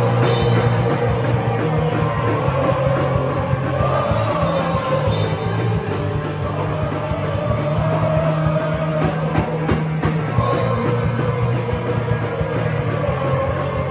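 A live melodic hardcore punk band playing loud through its instrument amplifiers: electric guitars, bass and drums, with singing underneath. The vocal microphones are dead after a sound-system failure, so the amplified instruments carry the song.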